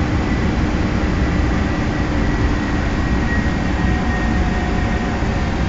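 Boeing 747-300 jet engines running at high power during a ground run-up, heard from inside the cockpit as a steady, loud rumble with a faint, high, steady whine over it.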